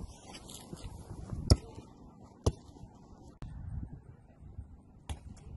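A few sharp knocks from a kids' cricket game on a driveway, the loudest about a second and a half in and others about a second later and near the end, over low outdoor background noise.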